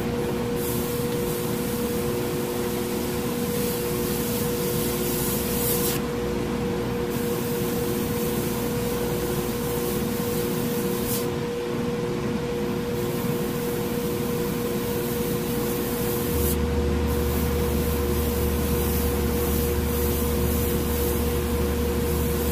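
Harder & Steenbeck Grafo T1 airbrush with a 0.15 mm nozzle and its needle cap off, hissing steadily as it sprays fine lines. The hiss stops briefly three times as the trigger is let go. A steady motor hum runs underneath, and a deeper hum joins it about two-thirds of the way through.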